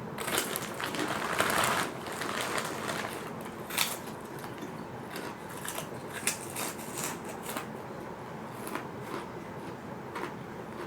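Fried fish crackers crunching as they are bitten and chewed, loudest in the first two seconds and followed by scattered sharp crunches.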